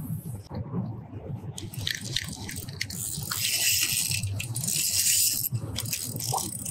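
Daiwa Fuego spinning reel being cranked to retrieve the line, a steady fine whir with many small clicks that becomes steady about three seconds in.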